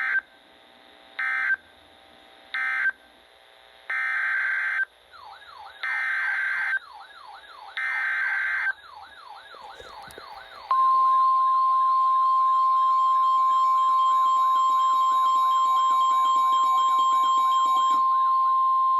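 Emergency Alert System data bursts and alarm tone. Three short squawks of digital data (the end-of-message code) come first, then three longer ones about a second each (the header for the next alert), then a steady single-pitch 1050 Hz weather radio warning tone held for about nine seconds. A warbling siren-like tone sweeps up and down under it from about five seconds in.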